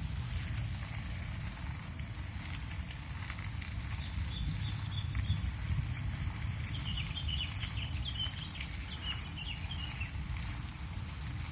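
Rural morning ambience heard from a moving bicycle: a steady low rumble of wind and riding noise and a constant high insect drone. From about four seconds in, a bird chirps in a quick series of short notes for several seconds.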